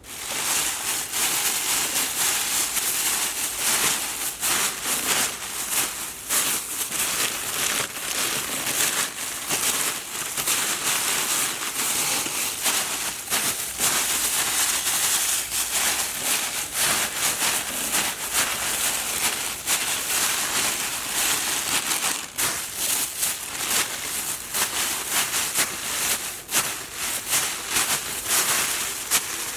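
Thin plastic bag being crumpled and rustled continuously, a dense crinkling crackle with no pauses.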